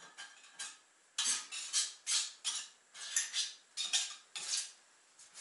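Old caulk being scraped from around the base of a toilet on a tile floor: a quick run of about a dozen short, rasping scraping strokes, starting about a second in.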